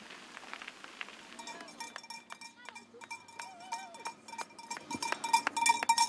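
Cowbells ringing in quick, irregular clangs. They start about a second and a half in and get louder and busier toward the end.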